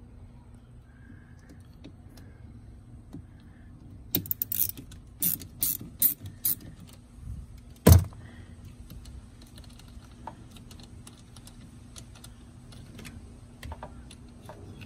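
Irregular metallic clicks and clatters of a socket wrench on the car battery's terminal and hold-down fittings, starting about four seconds in, with one loud knock about eight seconds in.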